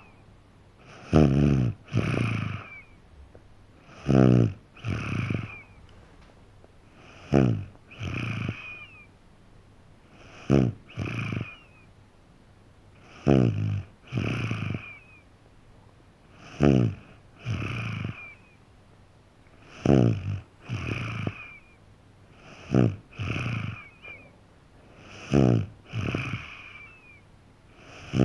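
A young child, about three and a half, snoring in sleep: a loud snore falling in pitch, then a softer breath, repeating evenly about every three seconds.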